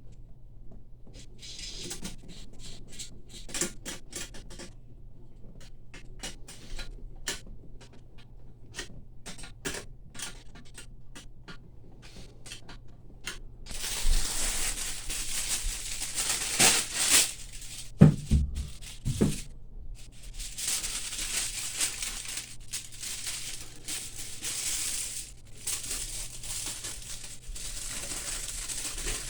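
Hand work on materials: scattered clicks and ticks, then from about halfway a louder rustling and crinkling, with a few dull thumps in the middle of it.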